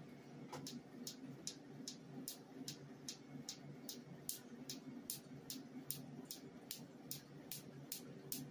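Q-switched Nd:YAG tattoo-removal laser firing pulses into the skin: a steady run of sharp snaps, about two and a half a second. A faint steady hum lies underneath.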